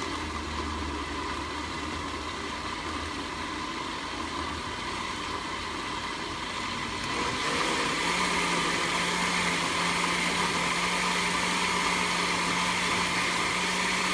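Electric countertop blender running, blending a hot sauce mixture. About halfway through it gets louder and a steady hum sets in.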